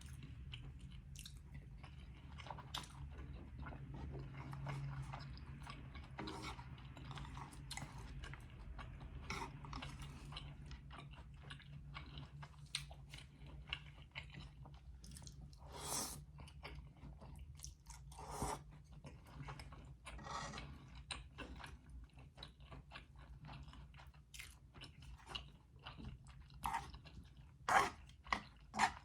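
Close-miked chewing and biting of chili oil noodles and steamed dumplings: wet mouth sounds made of many small clicks, with a few louder smacks near the end.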